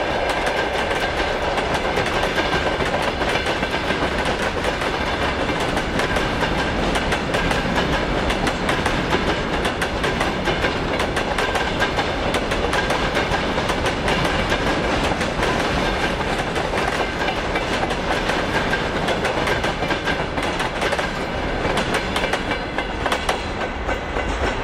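Freight wagons (gondolas and grain hoppers) rolling past, their wheelsets clattering over the rail joints in a fast, continuous clickety-clack over a heavy rumble, with a thin steady ringing tone above. The clatter eases near the end as the last wagons pass.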